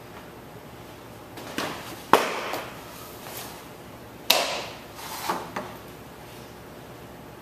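A thrown ball smacking into its target twice, about two seconds apart, with lighter knocks around them. Each smack rings on briefly in the big hall.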